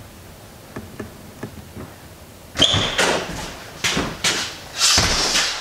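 A door opens with a short squeak about two and a half seconds in. Then a man blows hard into his cupped hands several times, breathy hissing puffs, warming his hands against the cold.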